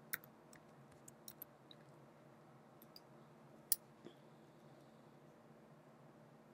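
Faint computer keyboard keystrokes, a handful of light taps in the first second and a half, then a single sharper mouse click a little past halfway.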